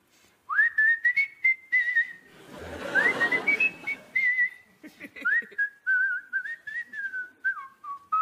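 A person whistling a tune, one clear line of notes stepping and sliding up and down, with a burst of studio audience laughter about three seconds in.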